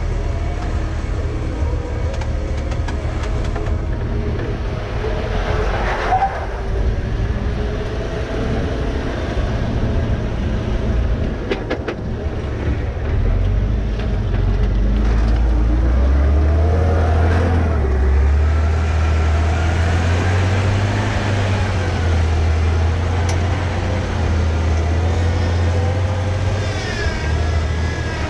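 Off-road vehicle's engine running under load as it crawls up wet slickrock, its pitch rising and falling with the throttle. It grows louder about halfway through, on a steep climb.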